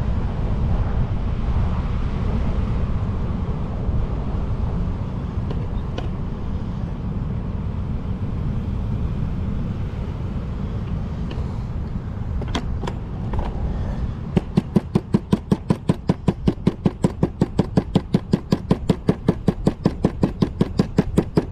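Low steady rumble of wind and surf with a few stray clicks. About two-thirds of the way in, a knife starts chopping on a plastic bait board in a fast, even run of knocks, smashing up chokka squid bait.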